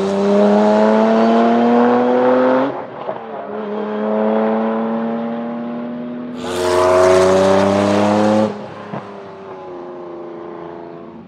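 Venturi 400 Trophy's twin-turbo V6 accelerating hard: the engine rises in pitch, drops suddenly about a third of the way in as the gear changes, then pulls again from a lower pitch. A second loud run of acceleration begins about two-thirds through and cuts off abruptly, leaving the engine quieter.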